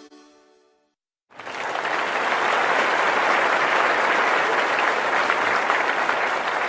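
The last notes of the closing-credits music ring out and fade, then after a moment of silence steady applause starts abruptly about a second and a half in.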